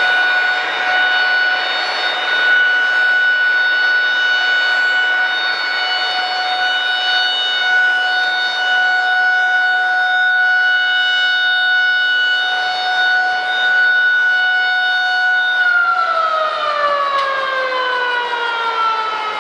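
Shipyard's motor-driven siren sounding for a ship launch: one steady high tone held for about fifteen seconds, then winding down in pitch near the end as the siren spins down, over a steady background hiss.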